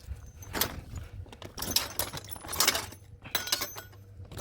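Scrap metal pieces clinking and clattering as they are handled and dropped in with the haul, four or five sharp clanks a second or so apart with rummaging between.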